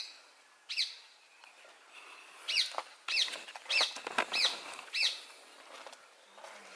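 A chipmunk calling: about seven sharp, high chirps, each dropping quickly in pitch, coming a little over half a second apart in the middle of the stretch.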